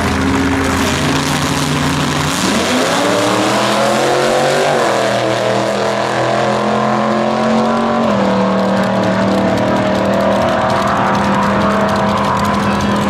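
Two drag racing cars, a vintage front-engine dragster and a supercharged V8 hot rod coupe, launching at full throttle. The engines run steady at the line, then their pitch climbs steeply about two seconds in and holds high as the cars run down the strip. The pitch steps down about eight seconds in.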